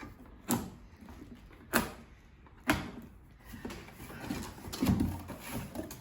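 A cardboard box and its packaging being handled and pulled open: three sharp knocks about a second apart, then rustling and scraping.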